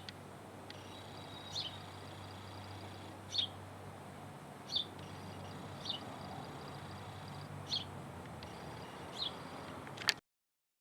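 A bird giving short, high chirps, about seven of them at roughly one-and-a-half-second intervals, over a low steady hum; the sound cuts off suddenly near the end.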